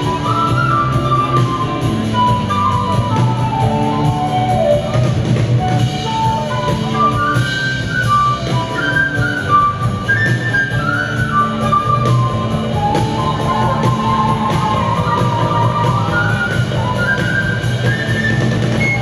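Flute solo over a live rock band, the flute playing quick melodic runs that climb and fall over steady bass, drums and keyboards.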